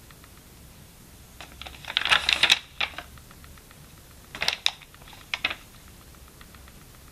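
Paper notebook pages being turned: a loud rustle about two seconds in, then a few short rustles and taps as a hand presses the new spread flat.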